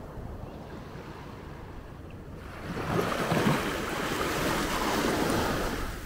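Small sea wave breaking and washing up a sand beach: a low wash at first, then a hiss of surf that swells about halfway through and dies away near the end.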